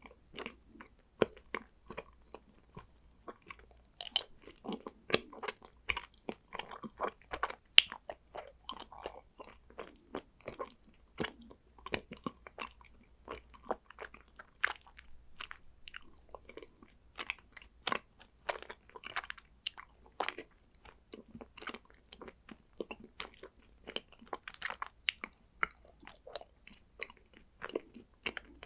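Chewing and biting condensed-milk chocolate: an irregular run of sharp crunches and wet mouth clicks, several a second.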